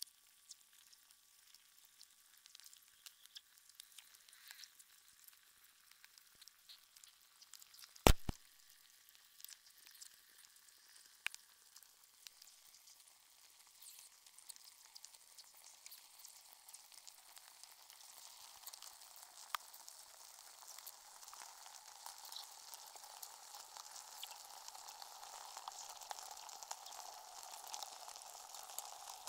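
A block of ice melting in water, heard through contact microphones frozen inside it: sparse crackling and ticking, with a sharp loud crack about eight seconds in, followed at once by a smaller one. A fizzing hiss grows steadily louder toward the end.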